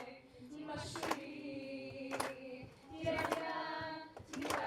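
Voices singing together on long held notes, with a sharp handclap about once a second.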